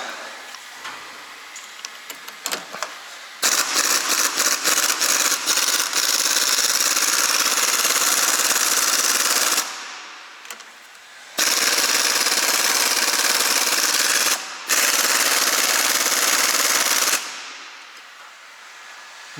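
Impact wrench hammering on a seized front stabilizer link nut in three long bursts, the first starting with a few short stutters; the nut does not come free.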